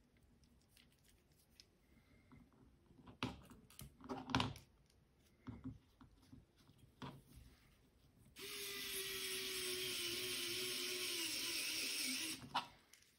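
Faint clicks of parts being handled, then a small electric precision screwdriver runs steadily for about four seconds, driving an M2x6 steel screw through a TPU bumper into the carbon-fibre frame. Its pitch sags slightly near the end.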